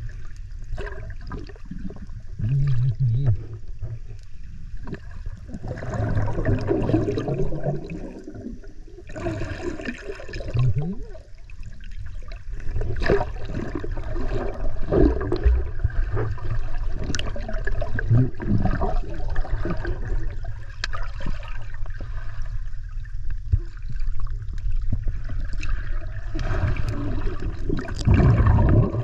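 Water splashing and gurgling close to the microphone, with irregular sloshes over a steady low rumble.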